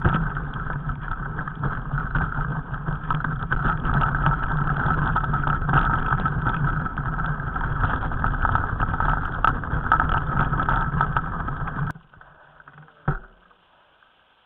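Mountain bike riding down a rocky trail, heard through a camera mounted on the bike: a dense rattle and rumble of tyres, frame and mount shaking over stones, with many small knocks. It stops abruptly about twelve seconds in, leaving a low hush and a single knock about a second later.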